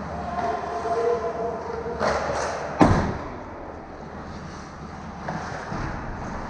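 Ice hockey skates scraping and carving on the ice, then one sharp, hard hit at the net about three seconds in, the loudest sound, as play reaches the goal.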